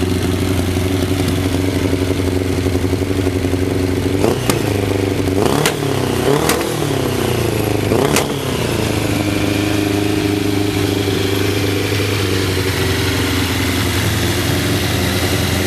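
Suzuki GSF1200 Bandit's inline-four engine idling steadily, blipped on the throttle four times in quick succession in the middle, each rev rising and falling back, then settling to an even idle again.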